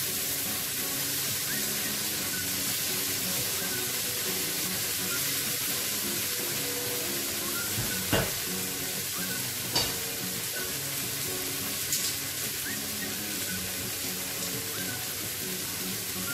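Shrimp frying in oil on a hot cast-iron sizzling plate: a steady sizzling hiss with a few sharp clicks, the loudest about eight seconds in.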